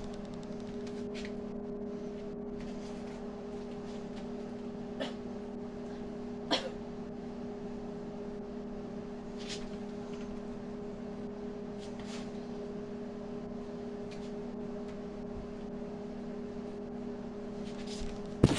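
Microwave oven running with a steady hum, heating noodles, with a few faint clicks and a sharper knock near the end.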